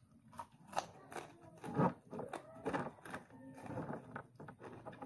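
Close-up chewing and mouth sounds of a person eating a mouthful of food by hand: irregular wet smacks and clicks, the loudest a little under two seconds in.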